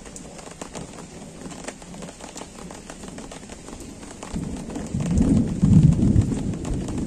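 Light rain pattering steadily. About four seconds in, a low rolling rumble of thunder builds and becomes loud, swelling and easing in waves.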